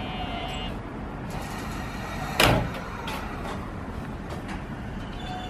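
Conductor's cab door of a JR East E233-series commuter train slammed shut once, a sharp bang about two and a half seconds in, followed by a few lighter clicks, over a steady station hum.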